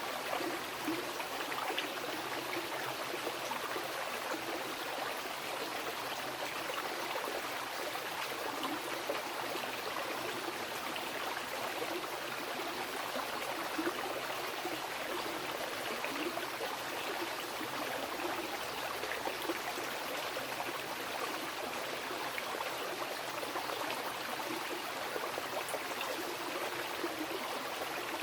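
Mountain river flowing over rocks: a steady rushing and babbling of water with small splashes throughout.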